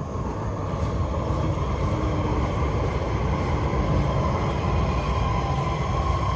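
A rail train passing, most likely an MRT train: a steady rumble that builds over the first second, with a whine that grows stronger toward the end.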